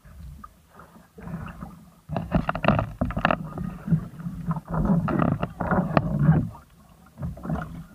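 A person climbing out of the water into a small boat: water splashing and dripping, with knocks and rubbing against the hull close to the microphone, loudest through the middle few seconds.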